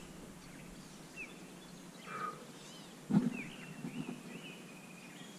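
Quiet outdoor background with faint birds chirping, short repeated calls. A soft knock of gear being handled comes about three seconds in.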